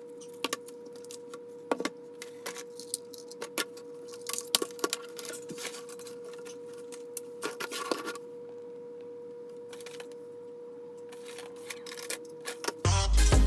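Scattered light clicks and short rattles of small objects being handled, over a steady high-pitched hum that stops near the end.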